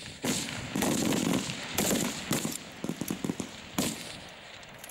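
A string of rifle shots on an open range, about six cracks in four seconds, each followed by a rolling echo. That is more shots than one firer's one shot per 4-second exposure, so several rifles along the firing line are shooting together. The shots thin out near the end.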